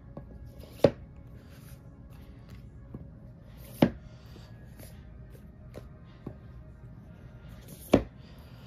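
Paperback books dropped one at a time into a cardboard box-set case: three sharp thuds, about three and four seconds apart, with lighter taps between.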